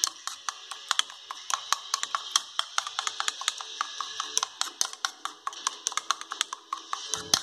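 Metal spoon clicking against a plastic bowl as raw eggs are beaten, in quick, uneven taps several times a second.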